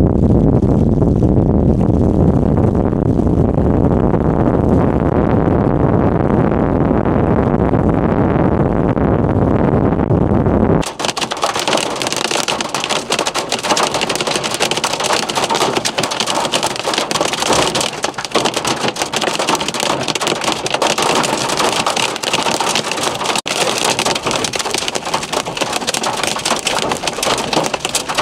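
Wind rumbling on the microphone for about the first eleven seconds, then an abrupt change to hail and rain striking a vehicle: a dense hiss packed with sharp ticks and knocks of hailstones.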